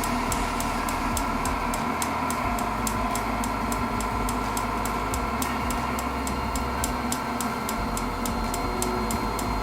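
Propane forced-air heater running, with a steady rush of fan and burner under an even clicking of its piezo igniter, about four clicks a second. The piezo clicks continuously while the heater runs.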